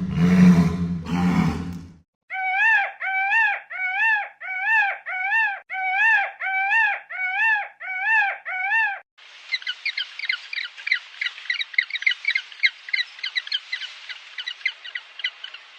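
Animal calls cut one after another. First the tail of a loud, deep roar-like call, then about a dozen identical arched, high-pitched calls repeated about every 0.6 s, and from about nine seconds in, rapid bird twittering.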